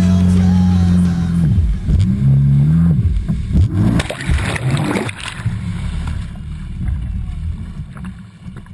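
Jet ski engine running with its pitch rising and falling, and lake water splashing and sloshing around a GoPro at the surface. The camera dips under the water about four seconds in, and the sound then grows quieter toward the end.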